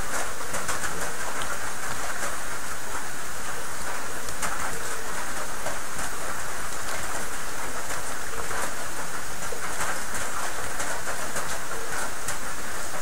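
Rain falling steadily, a constant hiss with scattered small drop ticks.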